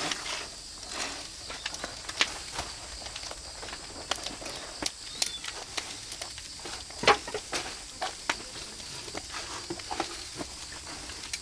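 Oak-wood fire crackling with irregular sharp pops, one louder pop about seven seconds in.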